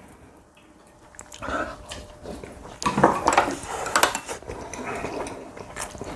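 Cutlery clinking and knocking against dishes during a meal: scattered sharp clicks after a quiet first second.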